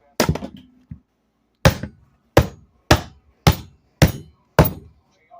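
Hammer blows: about seven hard strikes at a steady pace of just under two a second, the first ringing on briefly.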